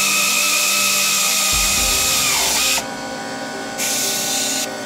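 Pneumatic air ratchet running at speed with a high whine and hissing exhaust air while driving in a dash screw. Its pitch sinks and it stops about two and a half seconds in as the screw tightens, then it gives two short bursts of air, the second near the end.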